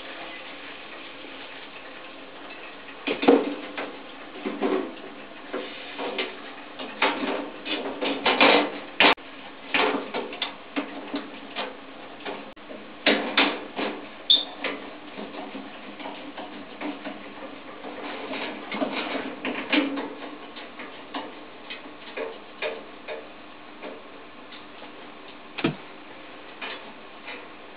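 An e.l.m. leblanc GLM 5 wall-mounted gas boiler running with its casing off and burner lit: irregular metallic clicks and ticks over a steady rush. The clicks come thickest from about three seconds in until about twenty seconds in, then thin out.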